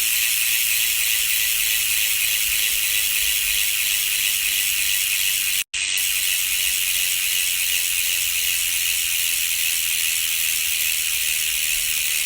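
Mountain bike rear freehub buzzing as the wheel freewheels, its pawls clicking so fast they run together into a steady ratcheting hum. It stops abruptly for a split second about halfway through, then carries on.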